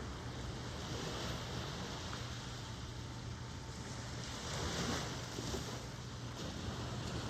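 Ocean waves washing in, a steady hiss of surf that swells about a second in and again, more strongly, around four to five seconds in, over a low rumble.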